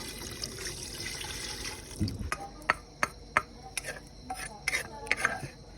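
Water running for about two seconds, then a dull thump and a string of sharp knocks and clinks of kitchen utensils against a pot.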